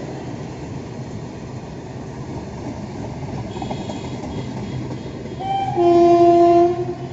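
Covered goods wagons of a freight train rolling past with a steady rumble. About five and a half seconds in, a train horn blows one loud blast of about a second, two notes sounded together.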